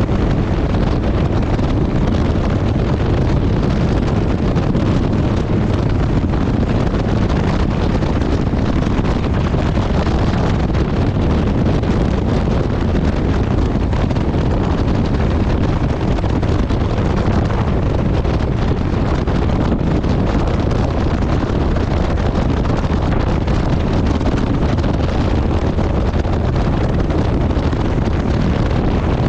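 Kawasaki VN1600 Mean Streak V-twin motorcycle running steadily at cruising speed, under a constant rush of wind buffeting the microphone.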